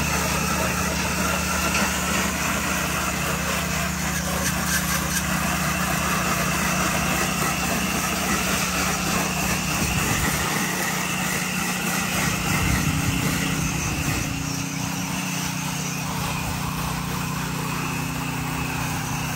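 Small gas engine of a pressure washer running steadily, with the hiss and splatter of a rinse stream from the wand hitting the soffit, gutter and siding.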